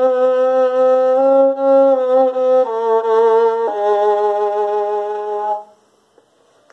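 Violin played with the bow in long, held notes. The pitch steps down twice, and the last, lowest note ends about five and a half seconds in.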